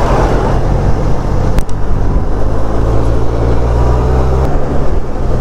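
Benelli TRK 502X parallel-twin motorcycle engine running under way, heard from the rider's position with road and wind noise. There is a louder rush at the start, and the engine note breaks briefly about one and a half seconds in and changes again about four and a half seconds in.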